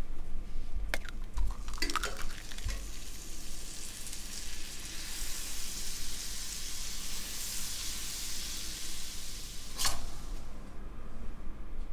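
An egg frying in a non-stick pan: a steady sizzle comes in after about three seconds and swells through the middle. A few knocks and clicks come in the first three seconds, and there is a short spatula scrape about ten seconds in as the egg is lifted.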